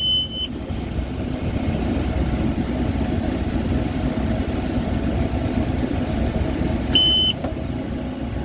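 Tractor engine running steadily while towing a bale wrapper. A short high electronic beep sounds near the start and again about seven seconds in.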